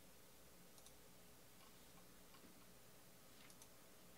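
Near silence: room tone with a few faint ticks.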